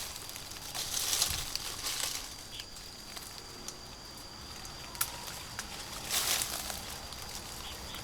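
Leaves and branches rustling in short bursts, with a few sharp clicks or snaps, over a thin steady high-pitched tone.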